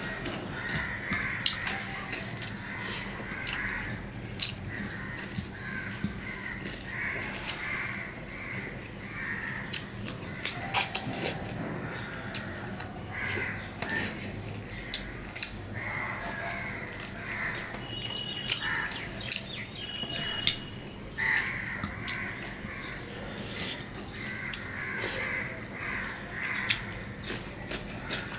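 Close-up eating sounds: wet chewing and lip smacks with sharp little clicks as rice and curry are eaten by hand. Crows caw repeatedly in the background, in runs of several calls.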